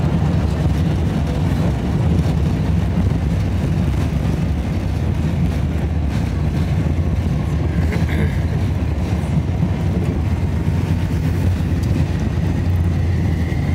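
Boeing 747-8 airliner rolling out on the runway just after landing, heard from inside the cabin: a loud, steady low rumble of engines and wheels. A faint high whine sets in near the end.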